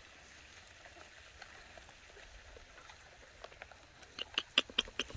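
Near silence, then a quick run of light clicks, about five a second, over the last second and a half.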